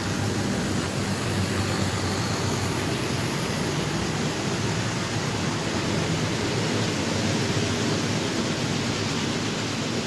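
Model train running along the layout track: a steady rolling rumble of wheels and motor with a rushing hiss.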